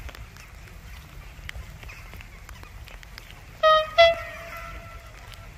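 Train horn sounding two blasts about three and a half seconds in: a short toot, then a longer one that fades away over about a second, over a low background rumble.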